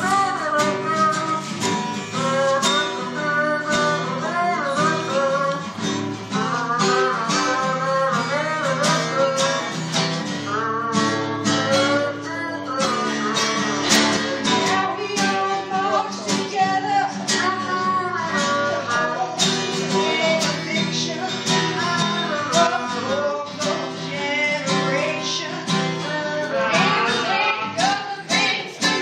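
Live music: a strummed acoustic guitar, with a voice singing over it.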